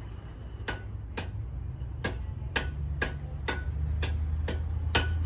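Blacksmith's hammer striking metal on an anvil: nine ringing blows at about two a second, with a short pause after the second blow.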